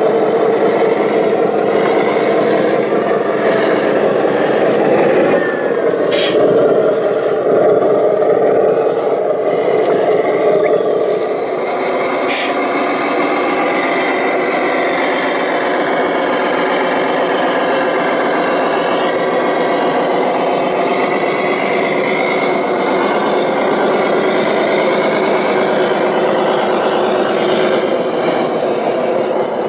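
Radio-controlled model construction vehicles running: a steady whir of electric motors and gearboxes, with a slowly rising and falling whine and a couple of brief clicks.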